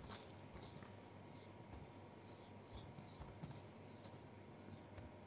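Faint computer keyboard keystrokes: a few scattered, irregular clicks over quiet room tone.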